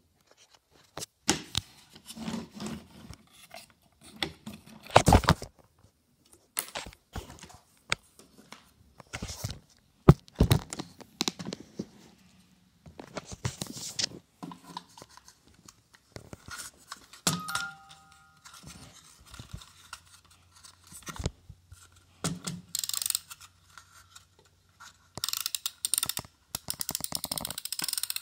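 Handling noise from a wooden toy ice cream truck music box being picked up and turned in the hands: irregular knocks, scrapes and clicks, with a quicker run of clicks near the end.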